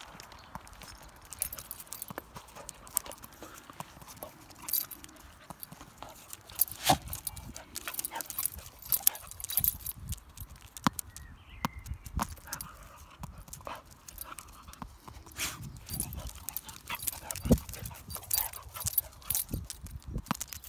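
A dog moving about on tarmac with a tennis ball: irregular clicks, taps and scuffs of its claws and the ball on the hard surface.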